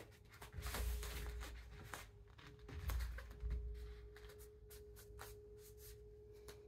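Muffled thumps and scuffs of a self-defence grappling move: feet shuffling on foam floor mats and hands striking and grabbing, the heaviest thumps about a second in and again around three seconds in. A faint steady hum runs underneath.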